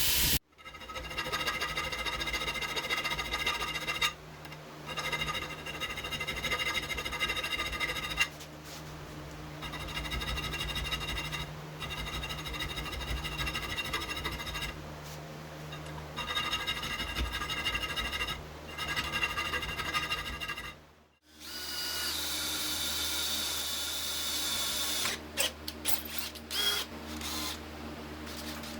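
Power tool motor running in several stretches with short pauses, a steady whirring tone with many overtones. About two-thirds of the way in it cuts to another steady machine hum, with a few sharp clicks near the end.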